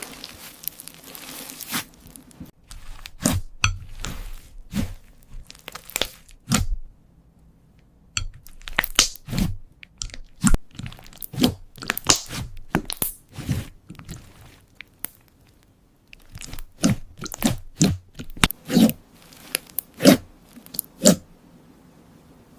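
Slime being squeezed and pressed by hand, giving an irregular run of sharp crackling pops and squishes, with two short pauses.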